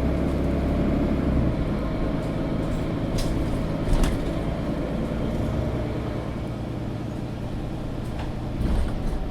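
Inside a Mercedes-Benz O530 Citaro facelift articulated bus on the move: the diesel engine drones low and steady, pulling harder for the first second and a half and then easing off. A few short knocks or rattles about three and four seconds in and again near the end.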